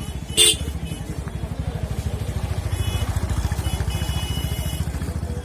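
A small engine running steadily, a low rapid throb. A single short, sharp clack comes about half a second in.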